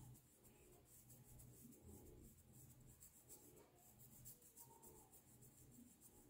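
Faint, repeated scratching of a fine-tooth plastic comb raked through short hair against the scalp, loosening dandruff flakes.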